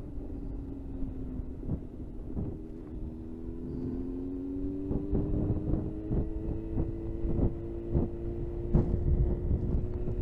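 Suzuki GSX-R inline-four engine running under light throttle, its note rising slowly as the bike picks up speed. Wind buffets the microphone throughout.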